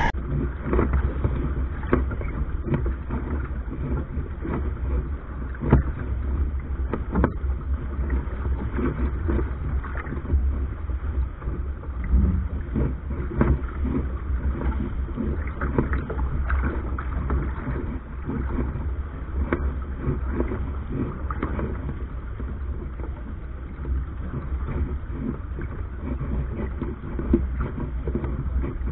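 Steady low rumble of wind and water aboard a Soling keelboat under sail, with wind buffeting the microphone. Scattered small knocks and taps from the boat come and go throughout.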